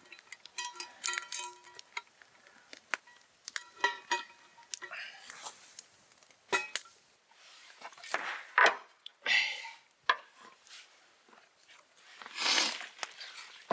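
Metal cookware and utensils clinking and knocking, many small clicks, some leaving a brief ringing tone, with a few louder rustling swishes in the second half.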